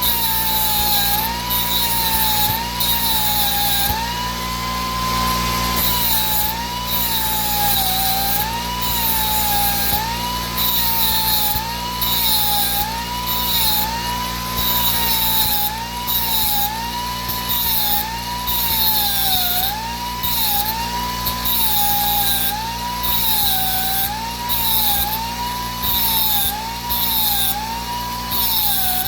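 Die grinder grinding the teeth of a Ryobi hedge trimmer blade. Its high whine sags in pitch under load and recovers about once a second as it works tooth after tooth, with a rasping grind at each pass. It runs steady and unloaded for a couple of seconds about four seconds in.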